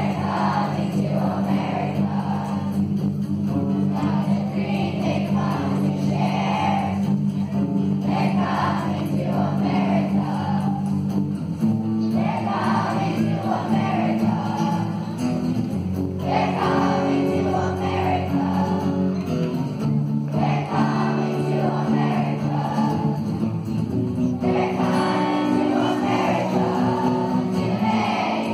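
A class of schoolchildren singing a song together to acoustic guitar accompaniment, with the chords changing every few seconds.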